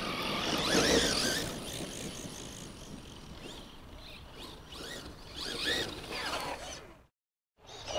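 Brushless electric motors of 1/10-scale RC monster trucks whining as they rev up and down while being driven, loudest about a second in and again around five to six seconds in. The sound cuts out briefly near the end.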